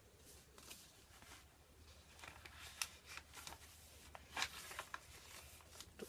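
Faint rustling and soft flicks of paper and card as journal pages and tucked cards are handled and turned, with two sharper flicks about three seconds in and again a second and a half later.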